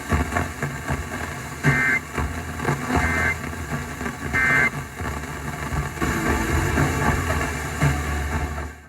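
Emergency Alert System end-of-message data code: three short, buzzy two-tone data bursts about a second and a quarter apart, marking the end of the tornado warning broadcast. A steady low rumble of background noise runs underneath, and the audio cuts off abruptly near the end.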